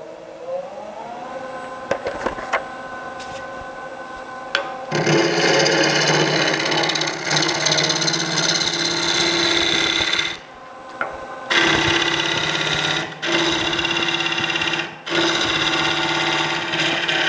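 Wood lathe spinning up, its motor whine rising in pitch and then running steady. About five seconds in, a bowl gouge starts facing off the top of a green elm bowl blank: a loud, continuous cutting noise. It breaks off for about a second midway and briefly twice more as the tool leaves the wood.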